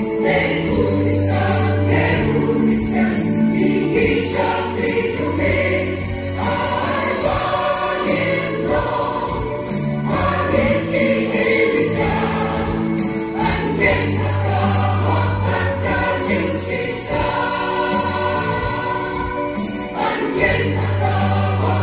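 Large mixed choir of women's and men's voices singing a Christian hymn in parts, with long held low notes in the bass.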